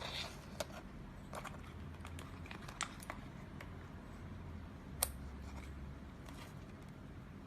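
Faint handling noise from a fibre patch cable and a handheld OTDR: scattered small clicks and rustles, with one sharper click about five seconds in.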